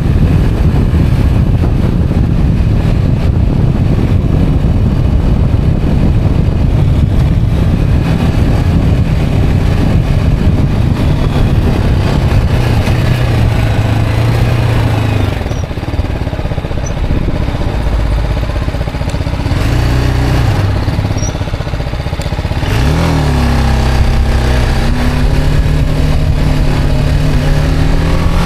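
Motorcycle engine running under way, under heavy wind and road rush. The engine note holds steady, eases off and quietens a little past the middle, then rises sharply as the bike accelerates and settles into a steady cruise near the end.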